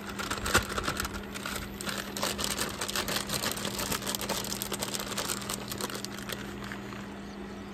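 Plastic bag crinkling and rustling as it is handled, over a steady low hum.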